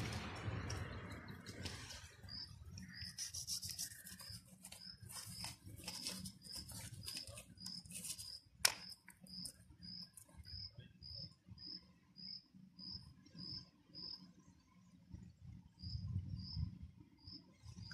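An insect chirping, a short high chirp repeating evenly about twice a second, over faint clicks and rustles of a knife cutting a small fish on stone. One sharp click a little before halfway is the loudest sound.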